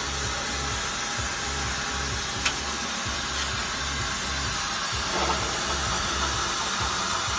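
Rotary CNC plasma pipe cutter running with a steady hiss, over a low rumble that comes and goes. A single sharp click sounds about two and a half seconds in.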